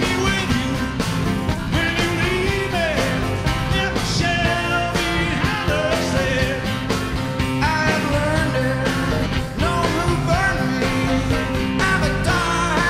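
Rock music with a singing voice over a steady drum beat.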